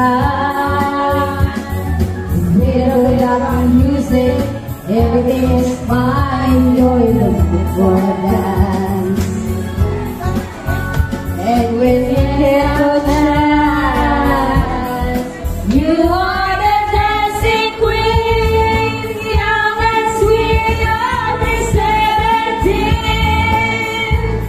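Karaoke: women singing a pop song into handheld microphones over a backing track with a steady beat, with long held, gliding notes.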